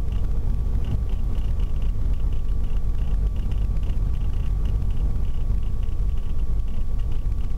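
Beechcraft Bonanza's piston engine running steadily at low power, heard inside the cockpit as a steady low rumble, with a faint steady high whine above it.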